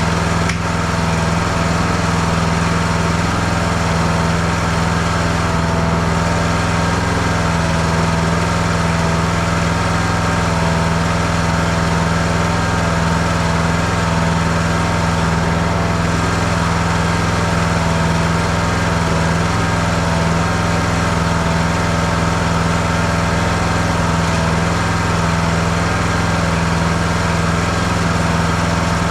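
A riding mower's 20 hp Briggs & Stratton Intek engine running steadily at one constant speed, with no revving or change in pitch.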